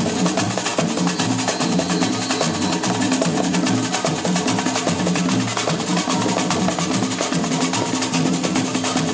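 Live hand-drum percussion: two tall barrel drums of the conga type played in a fast, driving rhythm, with a fast steady ticking on top.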